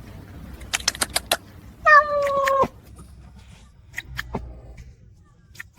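A cat meows once, a held call of under a second that drops in pitch as it ends, just after a quick run of sharp clicks.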